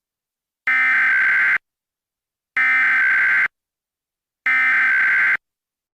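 Emergency Alert System SAME header: three identical bursts of digital data tones, each just under a second long and about a second apart. This is the coded header that opens an Immediate Evacuation alert.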